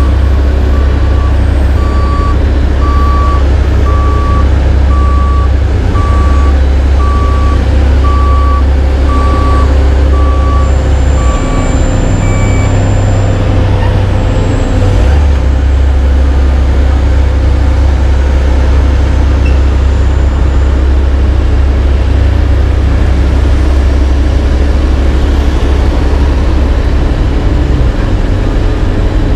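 Heavy diesel engines of a CAT AP655F asphalt paver and a dump truck running steadily as the truck tips asphalt into the paver's hopper, with a backup alarm beeping about once a second for the first dozen seconds.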